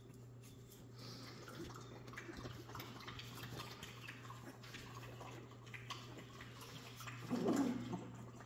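Jack Russell Terrier puppies shuffling and scratching about on towels in their bed, a faint rustling with small ticks, over a steady low hum. A brief louder low sound comes about seven seconds in.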